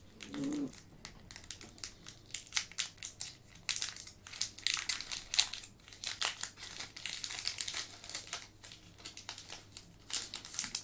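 Pokémon TCG booster pack's foil wrapper crinkling in irregular bursts as it is opened and handled.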